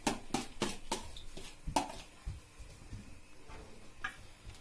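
Light taps on a plastic food container, knocking chopped parsley out onto a plate, about three a second for the first two seconds, then one or two more later.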